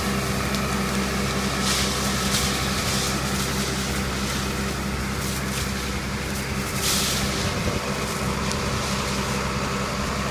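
A vehicle engine running steadily, with road noise and brief bursts of rattling or rushing noise.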